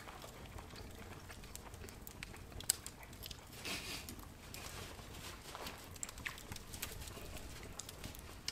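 Faint, scattered clicks and taps of forks on plates as two people eat quietly, with one sharper click just under three seconds in.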